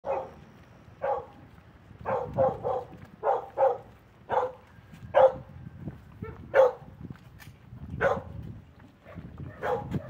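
Dog barking repeatedly, about a dozen short barks at irregular intervals, some coming in quick runs of two or three.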